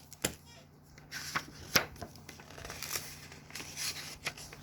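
Paper rustling with scattered soft clicks as the pages of a picture book are handled and turned.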